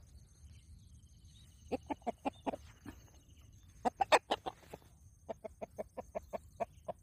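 Rooster clucking in runs of short, quick clucks: a handful about two seconds in, a louder group around four seconds, then a steady run of about ten near the end.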